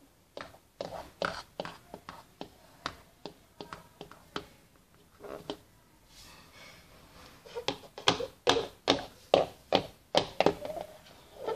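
Plastic Schleich horse figurines tapped and set down on a wooden floor: a run of irregular light taps and knocks, which come louder and in quicker succession from about eight to ten and a half seconds in.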